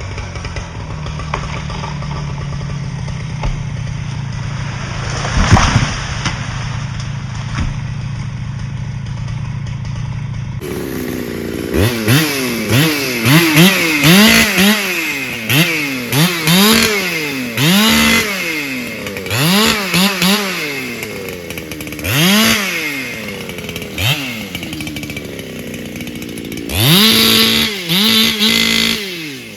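Solo 681 two-stroke chainsaw. At first a steady low drone with one sharp knock, then from about a third of the way in the engine is revved up and down over and over, each rev rising and falling in pitch. Near the end come two longer pulls held at high revs.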